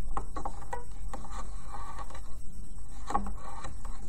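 Scattered light clicks and scrapes of rubber loom bands being stretched and wrapped around the pins of a plastic loom, over a steady low hum.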